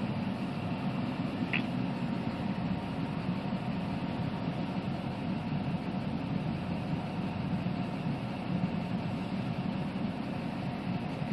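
Steady low rumble and hiss inside a stationary car with the engine running, and a brief high squeak about one and a half seconds in.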